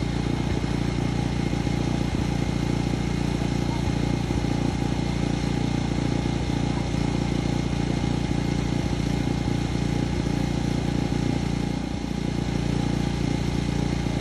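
Open-frame portable generator's small engine running steadily at a constant speed.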